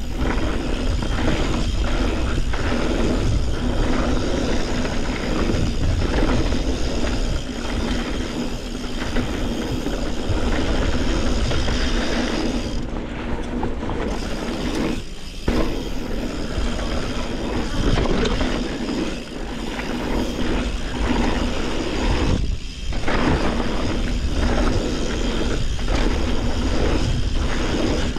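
Yeti SB140 full-suspension mountain bike riding down a rough trail: a steady rumble of tyres on dirt and rock mixed with wind on the microphone, and the bike rattling and knocking over bumps. The noise dips briefly a few times.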